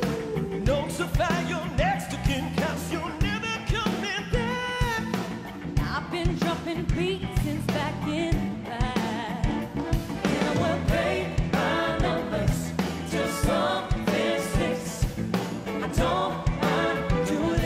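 Live pop-rock song with singing over a band and orchestra, driven by a steady drum beat.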